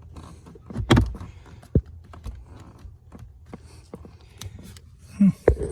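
Irregular clicks, taps and knocks of an HVAC blower motor and its housing being handled and pushed into place, with the loudest knocks about a second in and near the end.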